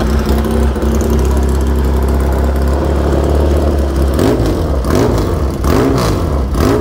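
Classic racing motorcycle engine idling with a steady low drone, then blipped repeatedly from about four seconds in, the pitch rising and falling with each blip of the throttle.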